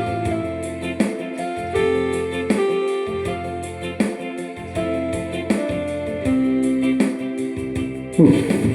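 Electronic keyboard music: held chords and melody notes over a steady beat.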